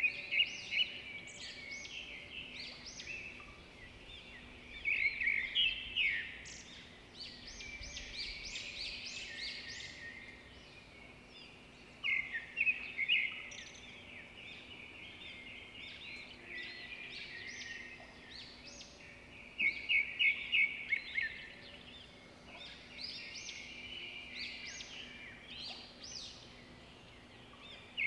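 Small birds chirping in flurries of rapid high notes, a burst every several seconds, over a faint steady low hum.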